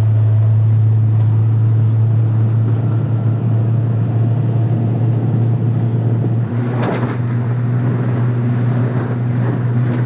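Small motorboat's engine running steadily under way: a low drone with a noisy wash over it. A brief louder rush comes about seven seconds in.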